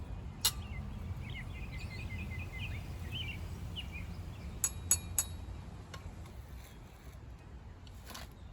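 Steady low background rumble with a quick run of high, bird-like chirps in the first half and a few sharp clicks, three close together around the middle.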